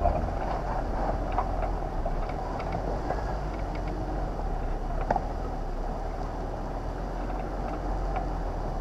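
Four-wheel-drive vehicle crawling over a rocky track: steady engine and tyre rumble, with scattered short knocks and rattles, the sharpest about five seconds in.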